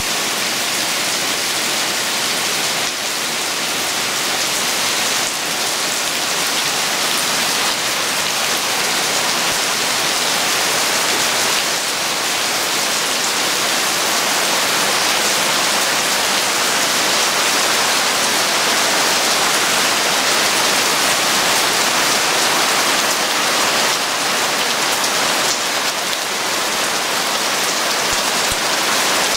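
Heavy rain pouring down in a steady, dense hiss, drumming on the surface of a swimming pool and on the surrounding jungle trees.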